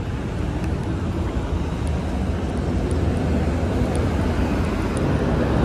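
Road traffic on a wide city street: a steady rush of passing vehicles with a low rumble, slowly getting louder.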